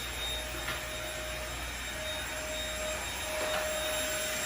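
A machine running steadily: an even whooshing hum with a thin steady whine over it.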